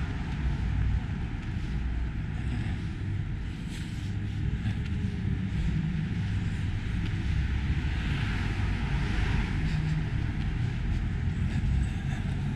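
Steady low rumble of city street ambience heard while walking along a sidewalk, with no single event standing out.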